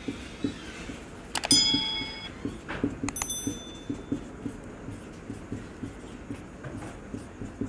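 Marker pen writing on a whiteboard: a run of short, soft strokes and taps of the tip as letters are drawn. A sharp click with a brief ringing ping comes about a second and a half in, and a fainter one about three seconds in.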